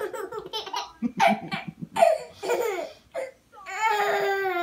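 Baby laughing in repeated short bursts, then a long drawn-out laugh held on one high pitch near the end.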